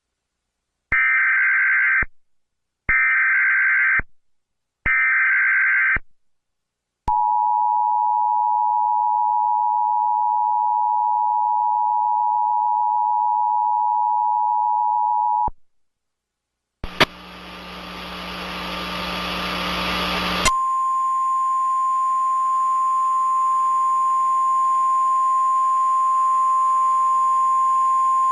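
Emergency Alert System tones: three one-second bursts of the buzzing SAME data header, then the two-tone attention signal held for about eight seconds. After a short gap comes a few seconds of loud hiss, then a steady single tone near 1 kHz, the National Weather Service 1050 Hz warning tone.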